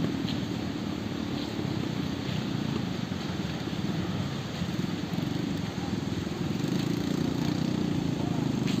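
An engine running steadily with a low, rapid putter.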